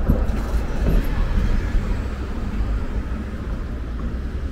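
Road traffic passing close by: a city bus drives past with a low rumble of engine and tyres, louder in the first second, and a taxi passes near the end.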